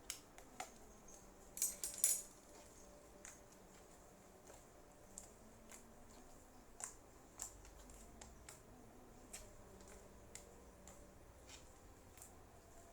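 Slime being kneaded and pressed by hand, with scattered small clicks and pops and a short cluster of louder crackles about two seconds in.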